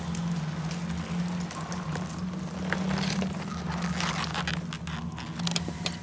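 Film sound-effects ambience: a steady low hum under scattered crackles and scraping noises.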